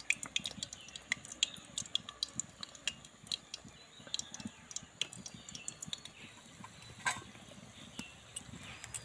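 Pieces of carrot gaja dough frying in a kadai of white oil, sizzling with scattered small crackles and pops, and a sharper click about seven seconds in. The oil is only lightly hot, kept low so the outside does not fry before the inside cooks.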